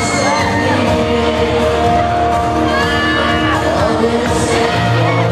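Male pop singer singing live into a microphone over an amplified backing track, with a crowd of fans shouting and cheering.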